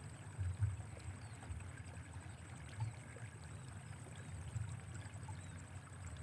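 Uneven low rumble of wind buffeting the microphone outdoors, with small gusty swells and only faint background noise above it.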